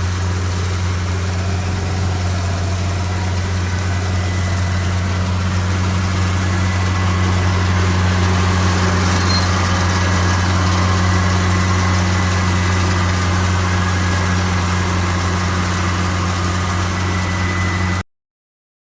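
Silage harvester (straw shredding and recycling machine) running steadily, a deep even engine hum with no change in speed. It cuts off suddenly about a second before the end.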